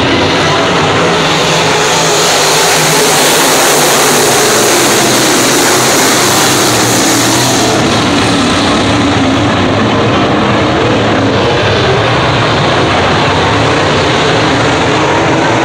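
A field of dirt-track race cars running at speed, their engines merging into one loud, continuous noise. It gets louder and brighter for a few seconds about two seconds in as the pack passes close by, then eases back.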